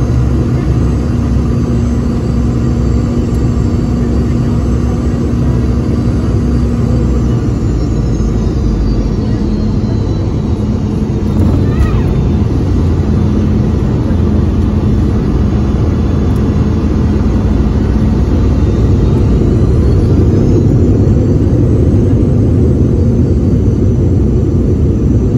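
Cabin noise of a Boeing 717 landing. The steady rumble of its rear-mounted Rolls-Royce BR715 turbofans carries a whine that falls as thrust comes back to idle. A short thump of touchdown comes about twelve seconds in. Later the whine rises again and the noise grows louder as the engines spool up for reverse thrust.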